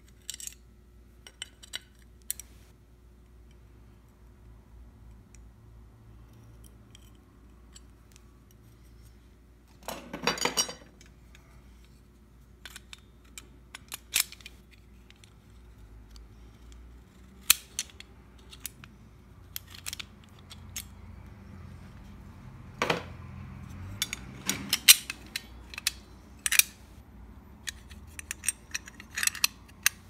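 Sharp metallic clicks and clacks of an antique mortise lock and its bit key being handled and worked, with a short rattle about ten seconds in and a run of clicks in the last third.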